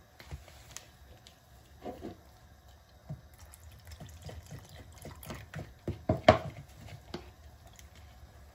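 Spoon stirring wet cornmeal in a plastic jug, with small clicks and scrapes against the sides, while cold water is poured in from a plastic measuring jug to work out the lumps. A couple of louder knocks about six seconds in.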